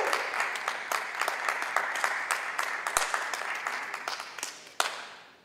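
Audience applause with many separate claps, steadily thinning and dying away to silence near the end, with one sharper clap shortly before it stops.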